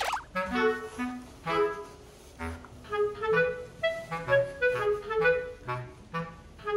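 Background music: a light, bouncy woodwind melody played in short, separate notes.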